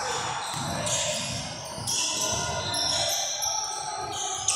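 Basketball bounced several times on a hardwood gym floor, each bounce a low thud in an echoing gym.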